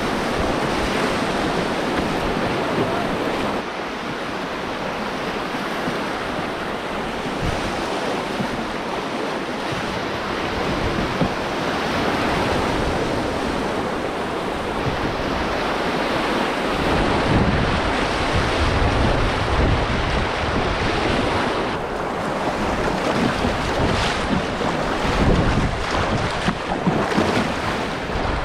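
Rushing river water: a steady hiss of fast-moving current around the canoe. Wind buffets the microphone in low gusts through the second half.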